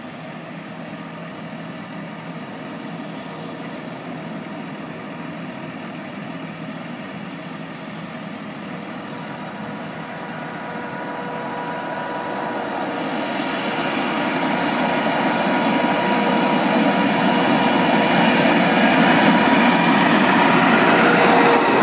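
Steady engine hum with heavy road traffic, swelling over the second half as a large diesel tractor-trailer hauling an oversize load approaches and draws level near the end.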